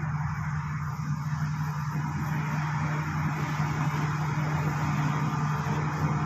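Bulldozer's diesel engine running steadily with a constant low hum.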